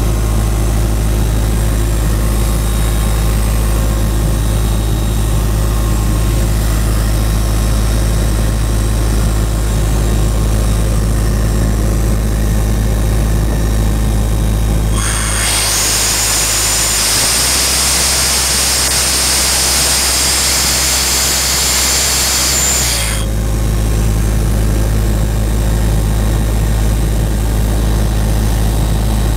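2000 Ingersoll Rand P185WJDU towable air compressor, driven by a John Deere four-cylinder diesel, running steadily. About halfway through, a loud hiss of compressed air rushing out starts abruptly, lasts about eight seconds and cuts off, and the engine note shifts while it blows.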